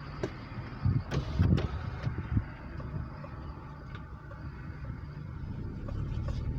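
Car driving, a steady low road and engine rumble, with a few sharp knocks about a second in.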